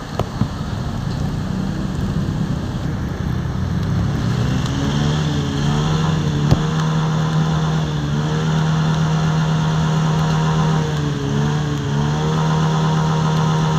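A vehicle engine running, its pitch rising a few seconds in and then held steady at raised revs, over the steady hiss of heavy rain. A couple of sharp knocks near the start and one about halfway.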